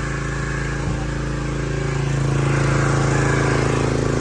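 Gas engine of a pressure washer running steadily, growing a little louder about two seconds in.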